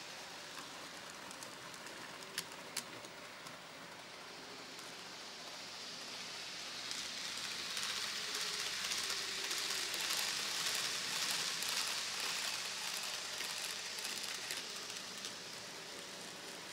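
N gauge model trains running on the layout: a fine, hissing rattle of small wheels on the track, growing louder about seven seconds in as a train runs close by and easing off again near the end. Two sharp clicks come between two and three seconds in.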